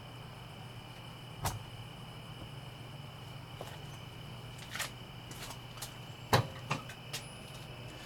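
Induction fan of a waterless outdoor wood furnace running with a steady low hum. Over it come a few sharp metallic clicks and knocks, the loudest about six and a half seconds in, as the firebox door latch is worked and the door is opened.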